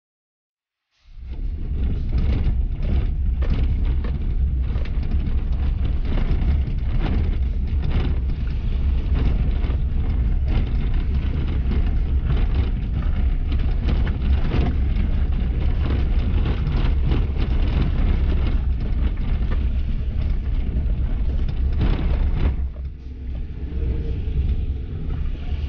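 Car driving over a rough track, cutting in abruptly about a second in: a loud, steady low rumble with many small knocks and crackles from tyres and suspension. It gets quieter about 22 seconds in.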